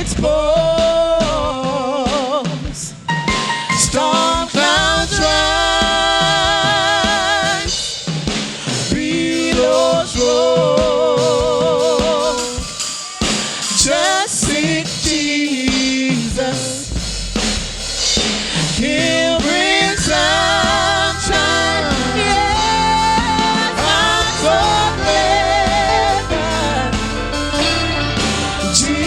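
Gospel song with a singer holding long notes with heavy vibrato and melodic runs, over a band with drum kit.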